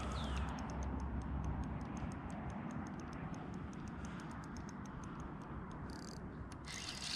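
Shimano Stradic spinning reel ticking in quick, irregular clicks while a large hooked flathead pulls against the line. Two short hisses come near the end.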